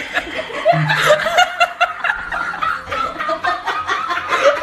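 Laughter: quick, repeated chuckling bursts, several a second.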